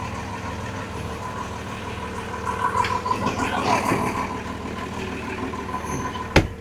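Sailboat's Perkins diesel engine running steadily with an even hum. A single sharp knock sounds near the end.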